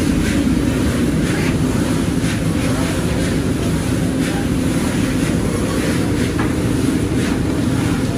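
Black chickpeas rattling and scraping as they are scooped out of a large iron wok with a metal sieve-ladle, over a loud, steady low roar.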